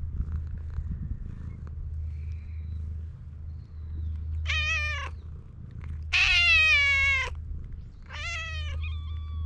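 Stray cat meowing three times. The middle meow is the longest and loudest, about a second long.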